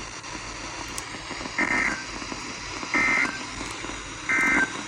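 Three short bursts of NOAA Weather Radio SAME digital header tones, a warbling data chirp repeated about every second and a half over faint radio hiss. This coded header marks the start of a new alert message.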